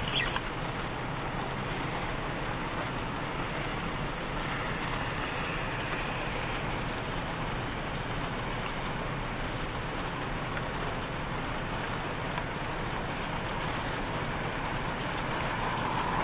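Steady hiss of rain, heard from inside a vehicle.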